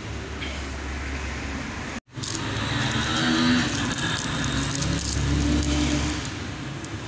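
Steady background noise, a low hum under a hiss, that drops out for a moment about two seconds in.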